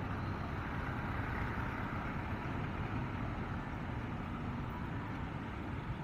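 Motorcycle riding slowly in heavy city traffic: a steady low engine rumble mixed with the noise of the surrounding cars, tyres and wind, with no sudden events.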